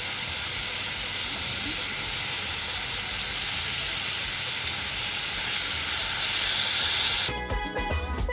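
Diced onions frying in olive oil in a pot, a steady sizzle. About seven seconds in it cuts to steelpan music.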